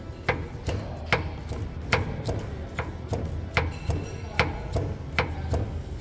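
Repeated clunking knocks from a VW Amarok's worn steering box as the steering is rocked back and forth, about two to three knocks a second: the sign of play in the steering box and its mounting bushings.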